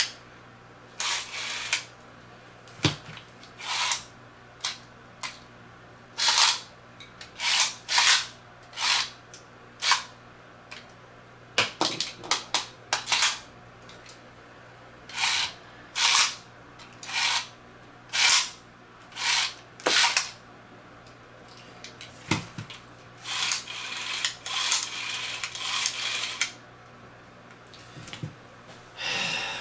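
Beyblade X string launcher being pulled again and again: more than twenty short, quick whirring zips of the ripcord string and its spinning gear, at irregular spacing, some in quick pairs and a busier run near the end.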